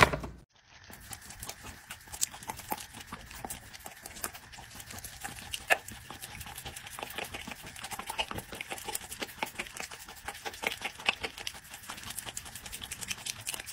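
A dog licking and chomping at a frosted cupcake held out on a fork: a quick, irregular run of wet mouth smacks and clicks, one sharper than the rest about six seconds in.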